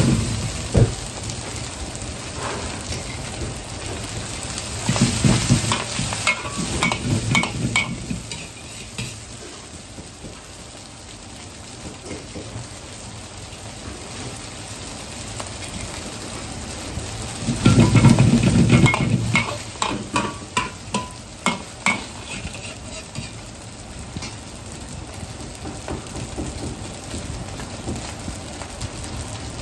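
Boiled noodles sizzling steadily in hot oil in a wok. Twice, around five seconds in and again around eighteen seconds in, a metal ladle stirs, knocks and scrapes against the wok in a short, louder spell.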